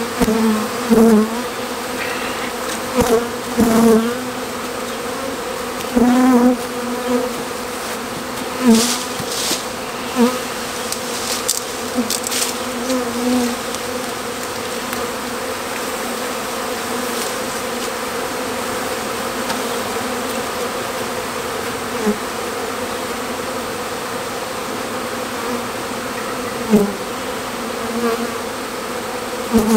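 Honeybee swarm buzzing: a dense, steady hum of a disturbed swarm being raked off a tree branch into a hive box, with single bees now and then zipping loudly past the microphone in short rising and falling whines.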